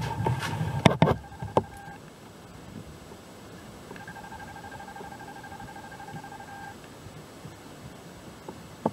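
A steady electronic tone, interference of unknown cause on the audio line, sounds for about two seconds, stops, then comes back for nearly three seconds in the middle. Handling knocks and a few sharp clicks come in the first two seconds, with one more click near the end.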